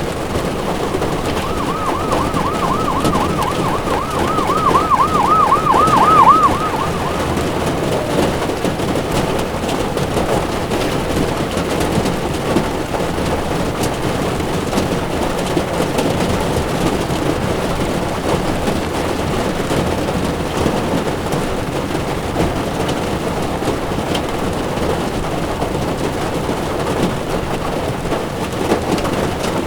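An emergency vehicle's siren briefly sounds a fast wavering wail that speeds up over about five seconds, starting about a second and a half in. Under it and after it, a steady hiss of heavy rain and car tyres on a wet road.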